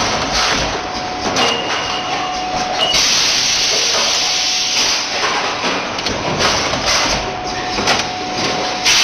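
Pneumatic machinery on a bottle production line running: repeated sharp hisses of compressed air being released, with mechanical clicks and clatter and a faint steady whine underneath. A longer, louder hiss starts about three seconds in and lasts about two seconds.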